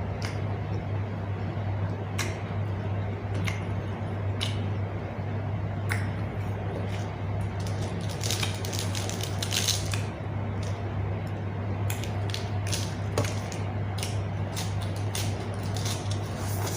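A person eating close to the microphone: chewing and crunching with scattered wet clicks, denser about eight to ten seconds in, over a steady low hum.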